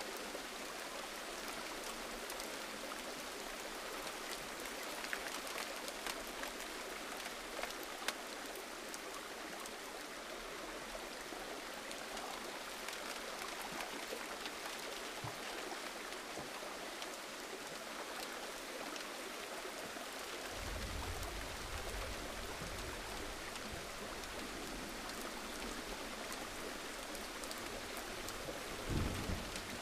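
Steady gentle rain: a continuous hiss with scattered drop ticks. A low rumble comes in about two-thirds of the way through, and a short low thump near the end.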